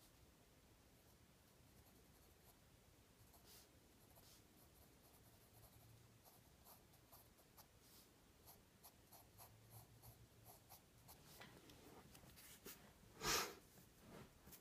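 Graphite pencil scratching faintly across paper in short, light strokes as construction lines are drawn. A single brief, louder noise comes near the end.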